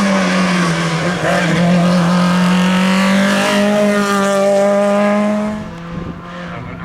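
Hill-climb race car at full throttle, its engine held at high revs with a brief pitch step or two from gear changes, passing and then fading about six seconds in.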